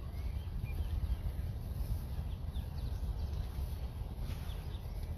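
Wind rumbling on the microphone outdoors, with birds chirping faintly now and then.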